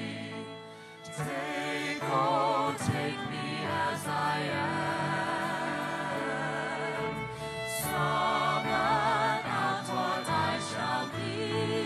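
Music: a song with singing, the voice holding long notes with a wide vibrato over a sustained backing. The music dips briefly about a second in, then comes back fuller.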